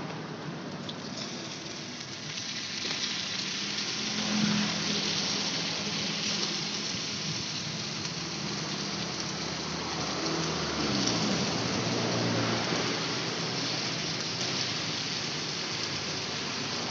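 Batter sizzling in a hot mold pan of round cups, a steady hiss as it is poured in and cooks.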